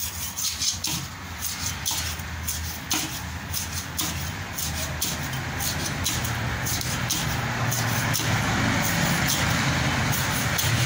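Cleaver chopping through seer fish into a wooden block, sharp chops about one to two a second. An engine's low rumble builds beneath it through the second half.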